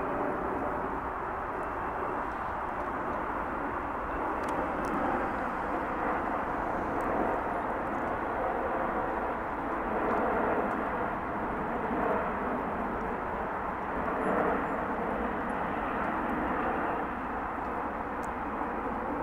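Jet engines of a twin-engine widebody airliner on landing approach with its gear down, passing overhead: a steady jet roar that grows a little louder in the middle.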